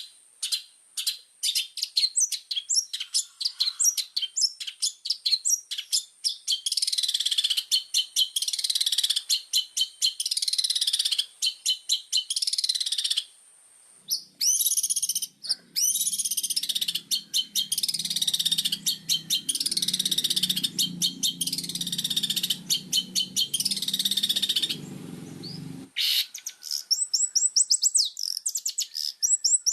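Long-tailed shrike singing a fast, harsh chatter of rapid, high, down-slurred notes, with short breaks. A low hum lies under the song from about halfway in until near the end.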